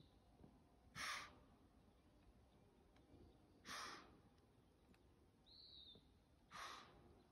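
Deer blowing: three sharp, breathy snorts forced through the nose, about one every two and a half to three seconds. This is the alarm snort of a deer confronting an intruder.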